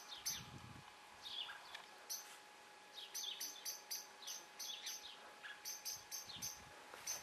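Garden birds singing at a distance: runs of quick, very high chips, several a second, mixed with short falling whistled notes.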